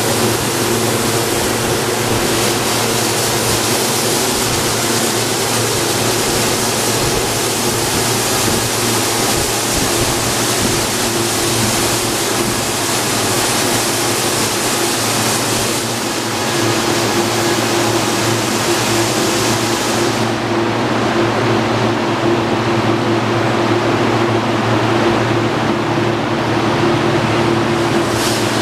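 Christ Varius automatic car wash running its high-pressure program: a steady hiss of water spray over the machine's steady motor hum. About twenty seconds in the spray cuts off, leaving the hum.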